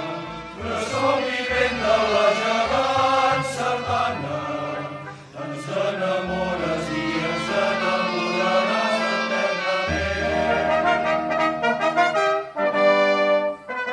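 Choral music: a choir singing a song with accompaniment, and held brass chords coming in near the end.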